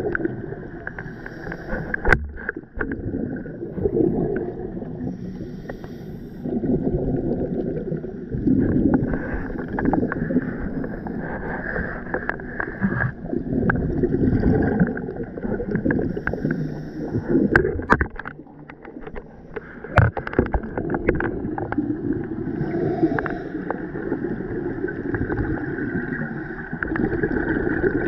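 Scuba diver breathing on a regulator underwater: swells of bubbling, gurgling exhaust noise about every four to five seconds, with scattered sharp clicks and knocks in between.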